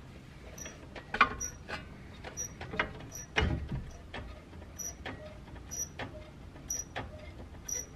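Hydraulic floor jack being pumped by hand to lift a brake rotor: clicks and knocks from the handle strokes, with a dull thud about three and a half seconds in, and short high squeaks repeating about once a second.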